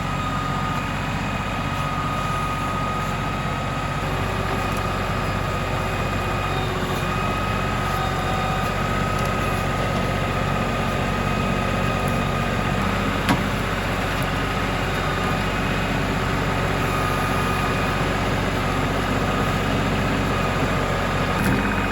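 LS XR3135 compact tractor's diesel engine running steadily under load with a constant whine, with one sharp knock about thirteen seconds in.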